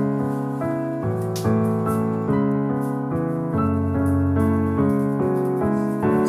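Background piano music: a calm keyboard tune with notes and chords changing about every half second.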